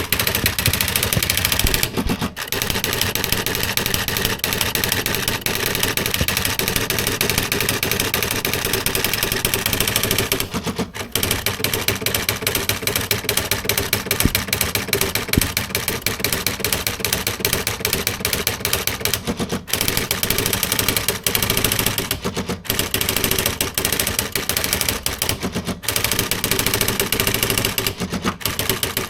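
Panasonic R540 electronic typewriter typing: a fast, continuous clatter of print strikes, broken by a few short pauses every several seconds.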